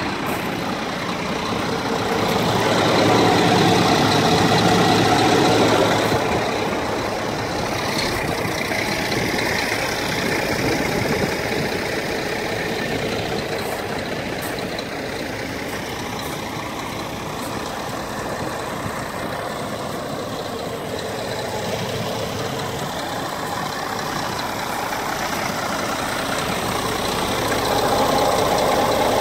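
Scania R400 tractor unit's six-cylinder diesel engine idling steadily, swelling louder for a few seconds about three seconds in and again near the end.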